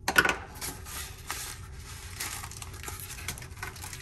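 Cardboard box and clear plastic wrapping crinkling and rustling as a small clock is unpacked by hand. Irregular crackles run throughout, with the loudest one just after the start.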